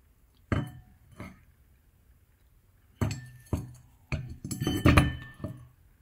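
Metal parts of a dismantled refrigerator compressor clinking and knocking as they are handled: two knocks near the start, then a quick run of clinks in the second half.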